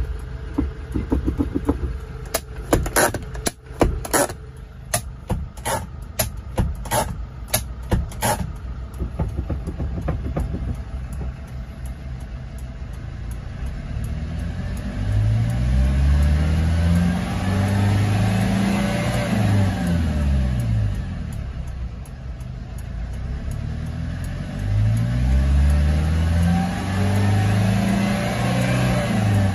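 Engine of a 2004 Hyundai Porter II CRDi truck, a common-rail diesel, idling with a quick series of sharp clicks or knocks in the first several seconds, then revved up and let fall back twice, the pitch rising and dropping each time, with the second rev near the end.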